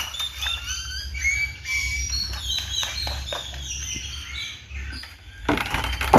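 Captive birds in an aviary calling: many short, overlapping chirping calls, with a brief rush of noise near the end.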